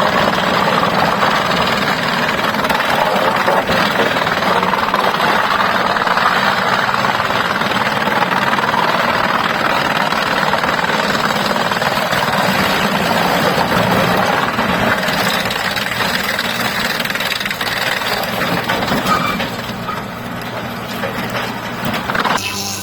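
Heavy sawmill machinery running with a loud, steady, rough noise that eases somewhat near the end.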